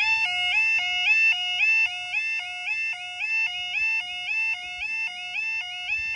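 Level crossing warning alarm sounding as the barriers lower: a loud electronic two-tone yodel that switches between a lower and a higher pitch about three times a second. It cuts off right at the end.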